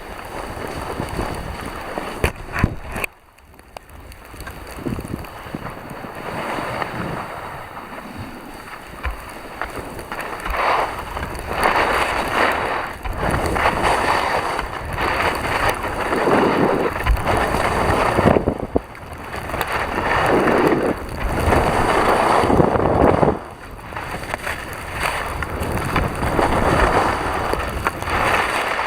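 Wind buffeting the microphone of a skier's camera while skiing, a loud rushing noise that swells and fades in gusts. It drops away briefly about three seconds in and twice more later on.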